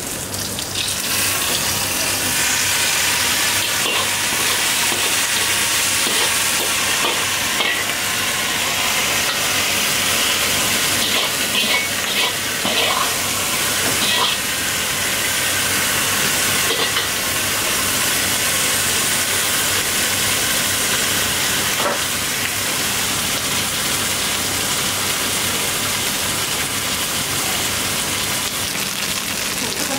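Thick ankake sauce sizzling and hissing in a very hot stone bowl as it is poured over fried tofu. The hiss is steady, with a few clinks around the middle.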